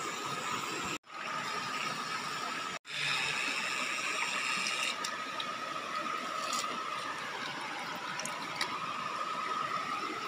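Shallow river water rushing over rocks, an even noise with a faint steady high whine running through it. The sound cuts out briefly twice in the first three seconds.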